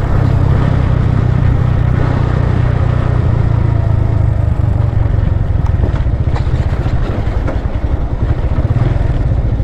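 Motorcycle engine running steadily while riding, a low drone with a rush of noise over it and a few short clattering knocks around the middle.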